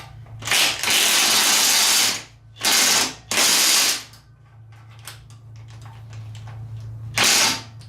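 Cordless DeWalt impact wrench running in four bursts, undoing 15 mm bolts on an LS4 engine through an extension. The first burst lasts about a second and a half, two short ones come around three seconds in, and a last short one near the end.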